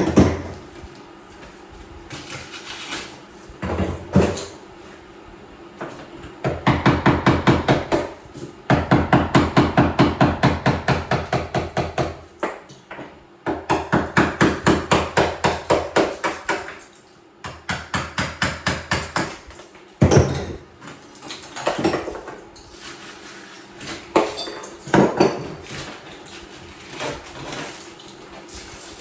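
Tile being chipped out of a shower wall: runs of rapid, even hammer strikes, about six a second, in bursts of a few seconds, with separate single knocks before and after.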